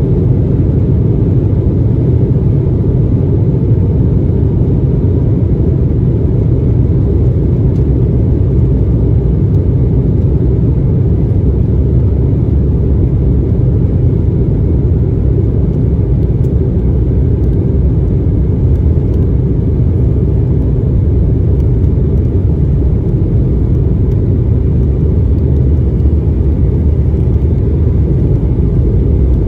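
Cabin noise of an Embraer ERJ 145 in flight or on its takeoff run. Its rear-mounted Rolls-Royce AE3007 turbofans and the airflow give a steady, loud, low rumble that does not change.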